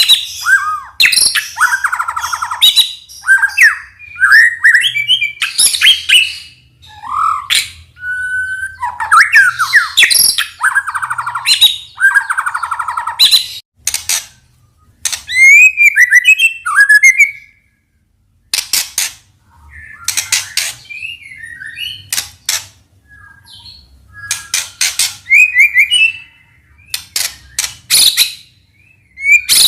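White-rumped shama (murai batu) singing: a fast, varied run of clear whistles, sharp chips and buzzy rattling phrases, delivered in bursts with short pauses. It is working through its repertoire of mimicked phrases from other birds.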